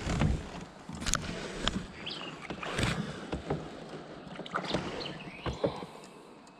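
Knocks and clatter on a plastic kayak as a caught smallmouth bass is handled over the side, then a splash about halfway through as the fish drops back into the water.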